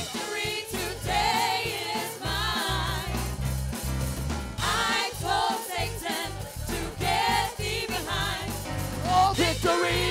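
Live gospel worship music: several singers on microphones singing over a band's steady low accompaniment.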